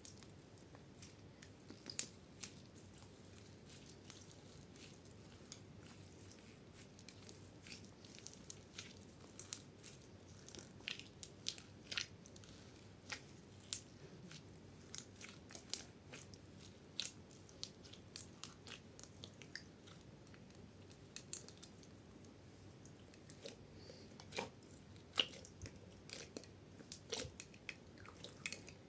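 Slime being worked by hand, giving many small, sharp, irregular crackles and pops.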